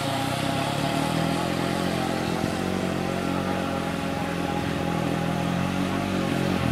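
The twin 380 brushed electric motors of a Heng Long 3837 RC speedboat running steadily at speed, a constant mechanical whine.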